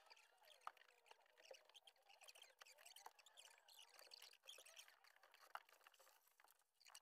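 Near silence: faint scattered clicks and rustles.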